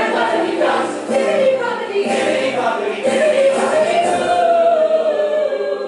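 Stage musical number: several voices singing together over instrumental backing.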